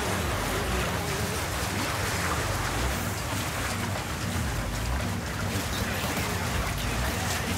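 Seawater sloshing and lapping against the concrete walls inside a breakwater slit: a steady watery splashing noise.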